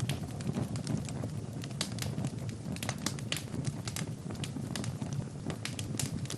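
Fire crackling in a fireplace: irregular sharp pops and snaps, several a second, over a steady low rush of the flames.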